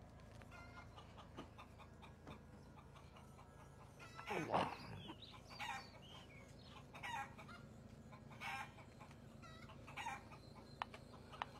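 Chickens clucking and calling now and then, about every second and a half, with the loudest call about four and a half seconds in.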